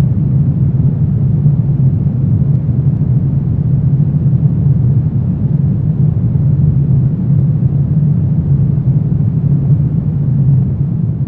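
Wind rumbling steadily: a deep, constant rush with no gusts or breaks.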